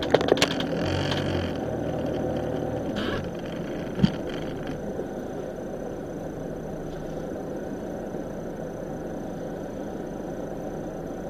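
Steady engine and road noise heard inside a vehicle's cab as it creeps forward in slow traffic, with a few clicks near the start and a short knock about four seconds in.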